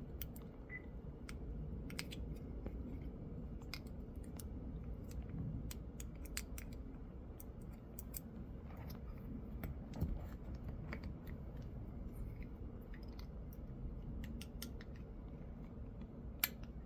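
Screwdriver prying a plastic power-window switch out of its housing: scattered small clicks and scrapes of plastic, with a sharper click near the end.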